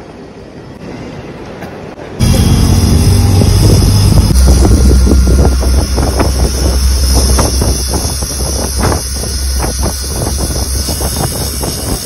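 Auto-rickshaw ride heard from inside the cabin: the small engine's low, steady drone with wind buffeting the microphone and the body rattling and knocking over the road. It starts abruptly about two seconds in, after a short stretch of quieter terminal ambience.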